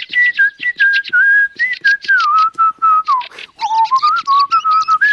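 A man whistling a wandering tune, the melody dipping lower a little past halfway and climbing back up near the end, over a quick run of short ticks.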